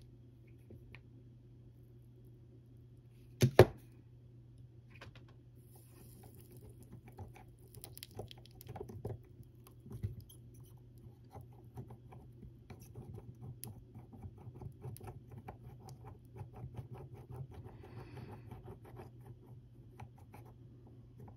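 Small clicks and scratches of hand soldering on an 18650 lithium cell pack: the iron and tools tapping and scraping on the cells and connecting strips, with one sharp knock about three and a half seconds in. A steady low hum runs underneath.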